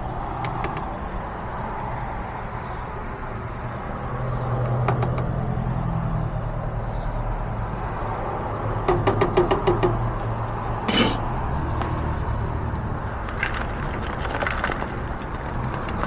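Steady low hum of street traffic with scattered clicks and clatter of food prep at a hot dog cart, including a quick run of about eight clicks around nine seconds in and a louder clatter about eleven seconds in.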